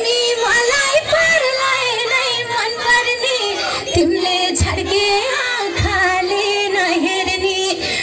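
Live Nepali song: a woman singing into a microphone over instrumental music.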